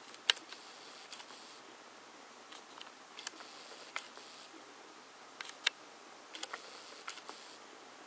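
Camera handling and lens-motor noise while the lens hunts for focus: about ten irregular sharp clicks and ticks over a faint hiss. The loudest click comes just after the start and another a little past halfway, and a faint high whir comes and goes in between.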